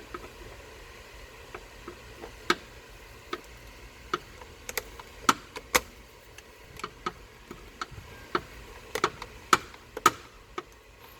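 Irregular sharp clicks and taps of hand tools on metal engine parts, a couple of dozen scattered unevenly over several seconds, some much louder than others, over a faint steady hiss.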